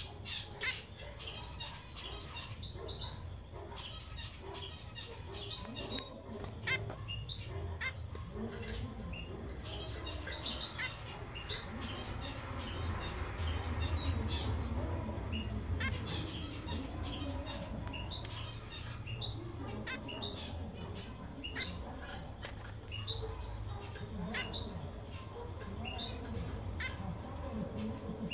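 Female zebra finches of the fawn black-cheek mutation giving short, sharp calls, repeated irregularly throughout, over a steady low hum that swells in the middle.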